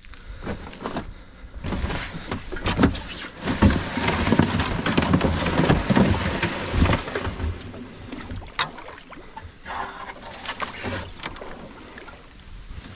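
Kayak being worked through shallow swamp water: irregular splashing and knocks against the hull, busiest between about two and seven seconds in, then a few scattered knocks.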